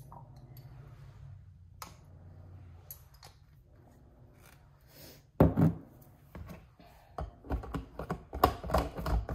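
Small kitchen handling sounds over a faint low hum: a few soft clicks, then a sharp knock about five seconds in, followed by a run of clinks and knocks as a metal screw lid is put on a glass water bottle.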